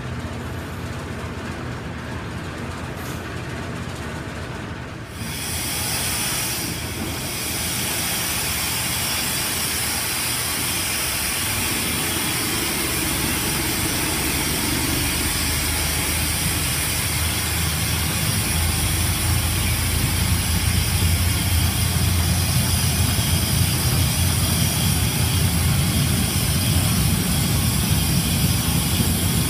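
Miniature railway diesel locomotive running and moving its train slowly out of the shed, with a low rumble of engine and wheels on the rails that grows louder in the second half. A steady hiss of escaping air starts about five seconds in, from an air leak in the train.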